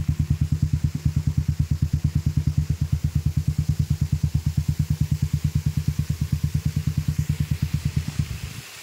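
An engine running close by with a fast, even pulsing beat, stopping near the end.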